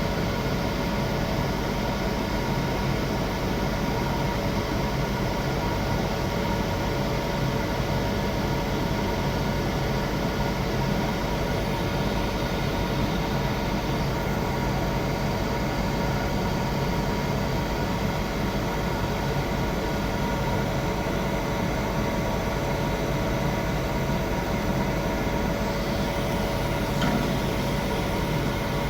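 Welding arc on a pipe root pass, crackling and hissing steadily without a break, over a steady electrical whine of several held tones.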